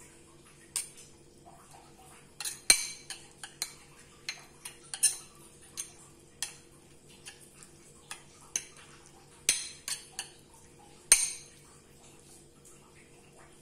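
Metal spoon clinking and scraping against a ceramic bowl as food is stirred in it: about twenty irregular clinks, the loudest a few seconds in and again near the end.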